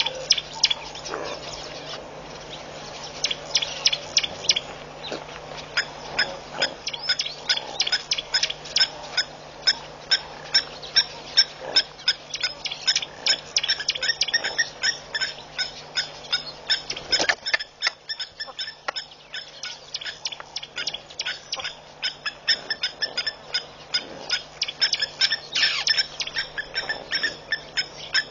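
Blacksmith lapwings giving their sharp, metallic 'tink' alarm calls over and over, several a second in bursts. This is the alarm of a pair defending their nest from large animals passing close by.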